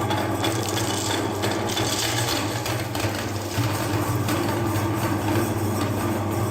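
Electric meat grinder running with a steady motor hum while its auger grinds chocolate, with a dense crackle of small clicks and scraping throughout.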